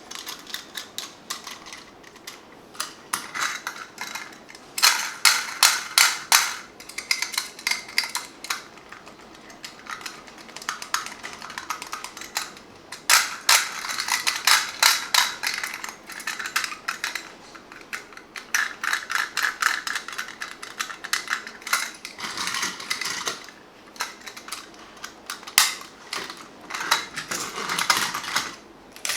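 Clusters of rapid small clicks and rattles, like hard plastic or die-cast toy parts being handled and knocked together, with the loudest runs about five seconds in and again around the middle.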